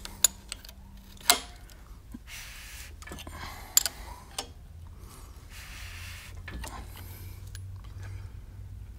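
A few sharp metallic clicks and clunks, the loudest about a second in, between stretches of soft rustling. A wrench on the crankshaft bolt is turning a bare 408 small-block Mopar short block over by hand, rotating its crank, cam and timing chain.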